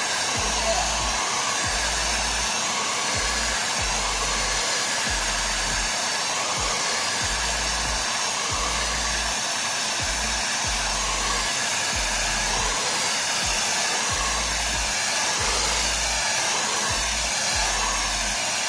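Handheld blow dryer blowing air steadily as natural hair is dried, a loud even rush with irregular low rumbling underneath.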